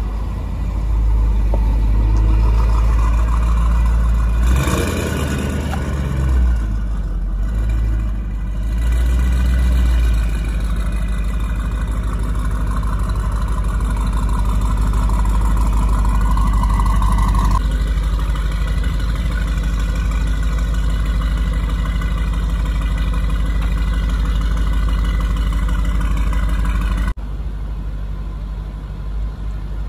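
Tuned Audi RS7's twin-turbo 4.0 V8 with upgraded turbos, heard through a straight-piped Milltek exhaust. It is revved in two short blips, then runs steadily. Near the end the sound drops suddenly in level at a cut.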